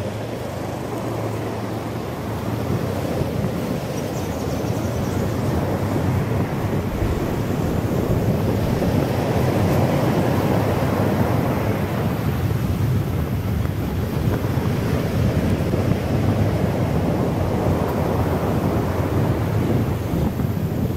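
Wind rushing over the microphone of a moving motorcycle, a steady rumbling noise with road and engine noise under it, growing a little louder over the first few seconds.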